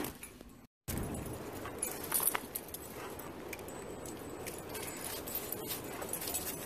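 Metal dog collar tags jingling and dry leaves rustling as dogs move about, with a few sharp clicks about two seconds in.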